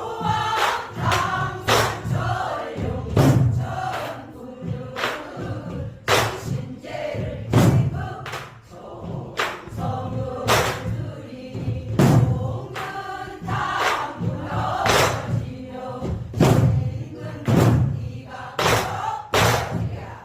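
Pansori singing in jungjungmori rhythm, sung while playing the buk barrel drum. Sharp drum strokes with a deep thump fall every second or two under the sung line.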